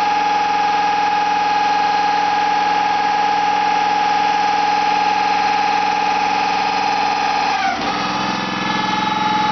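Engine-driven hydraulic system of a homemade drilling rig running steadily with a pitched hum. About eight seconds in the pitch dips and the sound drops a little, then it picks up again.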